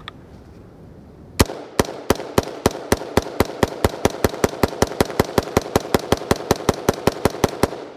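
BCM AR15 5.56 mm direct-impingement rifle with a mid-length gas system firing a long, rapid string of shots, about six to seven a second, starting about a second and a half in and stopping just before the end, with ringing between shots. It keeps cycling without a stoppage while being run hundreds of rounds without cleaning or lubrication.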